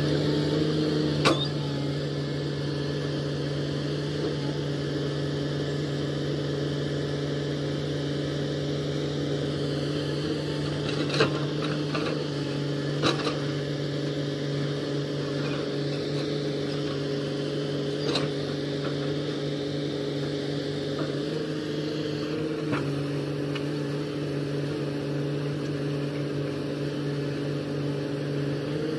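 Komatsu hydraulic excavator's diesel engine running steadily at high revs while digging dirt, with several sharp metallic knocks scattered through it.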